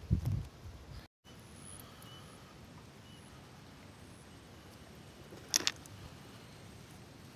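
Quiet pond-side ambience: a steady faint hiss with a brief dropout about a second in, and a single sharp click about five and a half seconds in.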